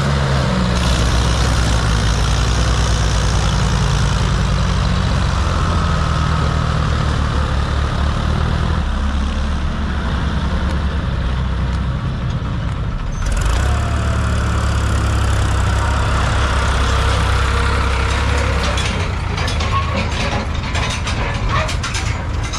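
Diesel tractor engines, a John Deere and a Mahindra Arjun, running hard under load as a trolley heaped with soil is pulled free of the mud. A rapid rattle of clicks comes in over the engines near the end.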